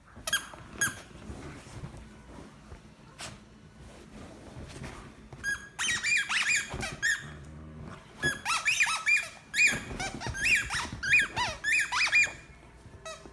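Runs of high-pitched squeaks, each rising and falling in pitch: a couple right at the start, then a dense, fast series from about halfway through to near the end.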